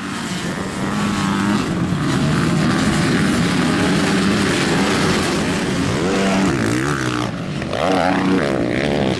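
A pack of motocross dirt bikes running hard together, many engines blending into one dense sound. From about six seconds in, single bikes stand out, revving up and down.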